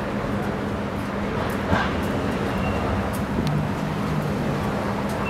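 Street traffic noise with a steady low engine hum and a few brief sharp sounds, the loudest about two seconds in.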